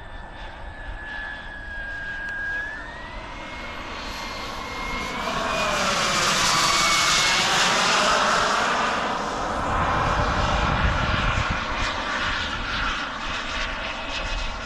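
Small turbine engine of an RC model jet in flight: a steady high whine with a jet rush. The whine rises in pitch about two and a half seconds in. The sound swells loudest as the jet passes overhead between about six and nine seconds, its pitch falling as it goes by.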